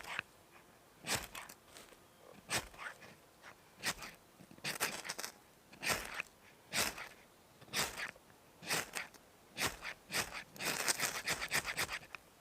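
Repeated crunching scrapes, roughly one a second, running together into a quick flurry of strokes near the end.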